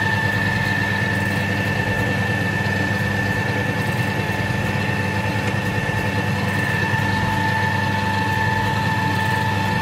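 Electric stand mixer running steadily, its motor giving a constant whine over a low hum as the beater works through creamed butter-and-sugar cake batter.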